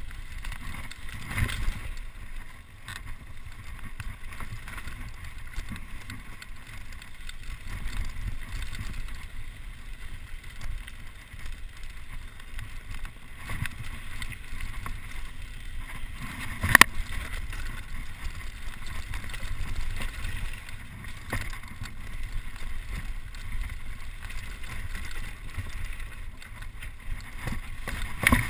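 Mountain bike riding fast down a rocky dirt trail: wind buffeting the microphone in a steady low rumble, with the tyres and frame clattering over stones in many small knocks and one sharp, loud knock a little past halfway.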